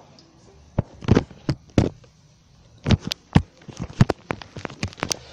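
An irregular series of about fifteen sharp knocks and clicks of hard objects being handled, starting about a second in and coming closer together toward the end.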